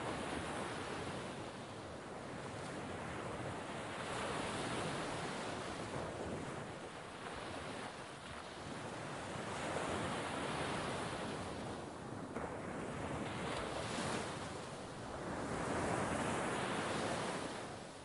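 Sea waves washing onto the shore, a steady hiss that swells and fades in surges every few seconds.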